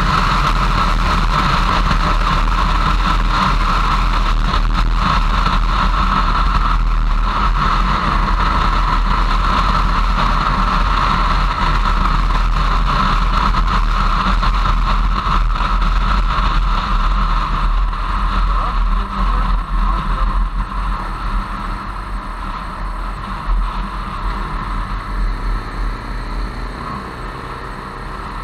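Motorcycle riding at road speed, heard from a camera on the bike: a steady rush of engine and wind. Over the last third it slows, getting quieter and more uneven, with the engine pitch shifting briefly near the end.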